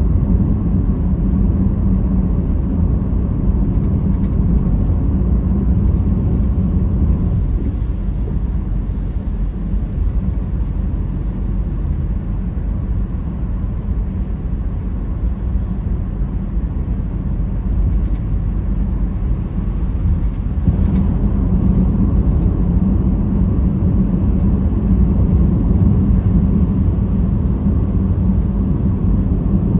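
Car driving, with a steady low rumble of engine and tyres on the road. It eases off a little through the middle and picks up again about two-thirds of the way in.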